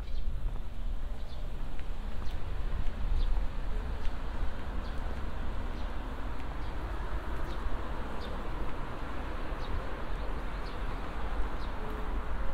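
Open-air railway platform ambience: a steady wash of city noise with a low rumble underneath, and short, high bird chirps every second or so.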